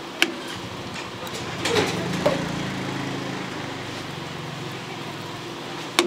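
Street-food stall sounds: three sharp clinks, one near the start, one about two seconds in and one at the end, with a brief rustle, over a steady low hum that sets in about a second and a half in and fades near the end.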